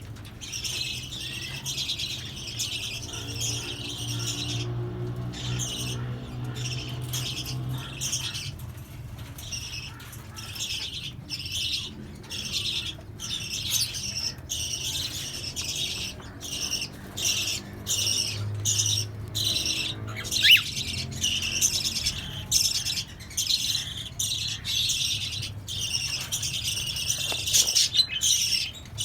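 A mixed aviary flock of Fischer's lovebirds, cockatiels and budgerigars chattering and squawking, many birds calling at once in quick, broken bursts that never let up. A low steady hum sits underneath at times.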